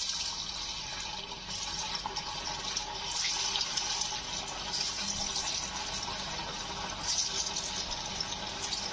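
Banana kofta ball deep-frying in hot oil in an iron kadhai: steady sizzling and bubbling with fine crackling, swelling slightly in short spells.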